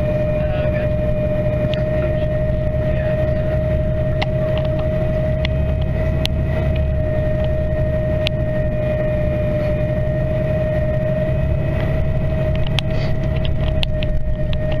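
Steady engine and road noise heard from inside a moving vehicle, with a constant whine running through it and scattered light clicks and rattles.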